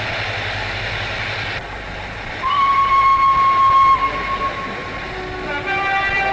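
Steam railway recording played from old reel-to-reel tape, with hum under it. Steady train noise cuts to quieter background about a second and a half in. A locomotive whistle then sounds one steady high note for about a second and a half and fades, and near the end a second whistle with several tones at once starts.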